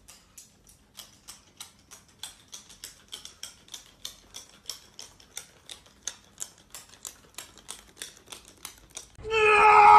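Small walking toy chick's wind-up mechanism clicking steadily on a tiled floor, about four quick ticks a second. About nine seconds in, a much louder pitched sound cuts in.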